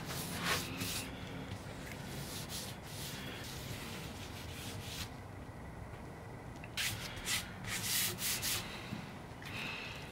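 Short scratchy strokes and handling sounds of caulk being applied and smoothed along the edges of a picture frame. A quick cluster of strokes comes about seven seconds in.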